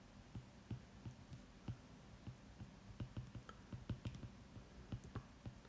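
Faint, irregular clicks and taps of a stylus on a drawing tablet while handwriting, several a second.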